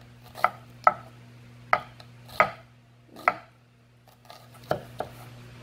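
Chef's knife slicing a red onion on a bamboo cutting board: about seven irregularly spaced knocks of the blade striking the board, over a steady low hum.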